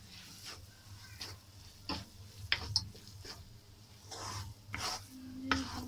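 Wooden spatula scraping and turning crumbly scrambled egg in a kadai, in several irregular strokes over a low steady hum.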